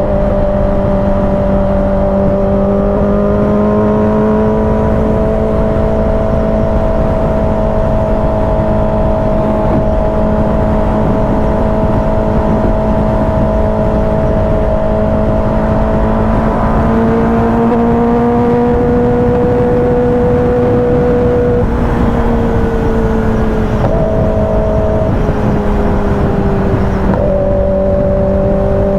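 Kawasaki ZX-10R inline-four motorcycle engine running steadily under way. Its pitch drifts slowly up and down and changes abruptly a few times in the last third, as with throttle or gear changes.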